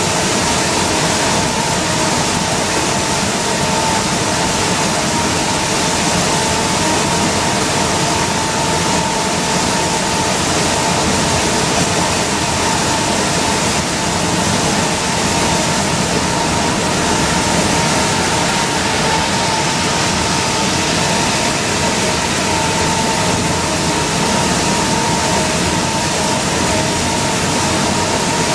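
Cabin sound of an Orion V transit bus cruising at highway speed in the rain. Its drivetrain drones steadily with a constant whine, over the hiss of tyres on the wet road.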